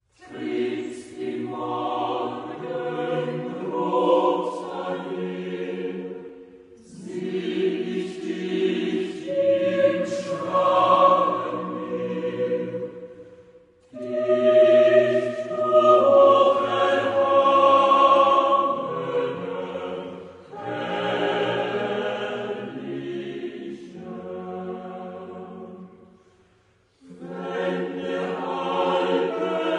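A choir singing slow sustained phrases, each a few seconds long, with short breaths between them and a longer pause near the end.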